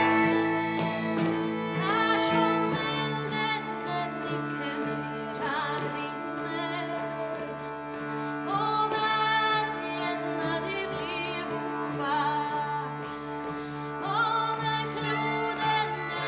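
Swedish folk music played live: a woman's voice singing with two fiddles, a steady harmonium drone and a strummed 12-string guitar. The low drone shifts to a new note about three seconds in.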